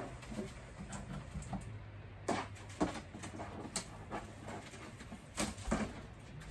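Scattered light knocks and clicks of household items being handled in a kitchen, one or two a second, over a faint low hum.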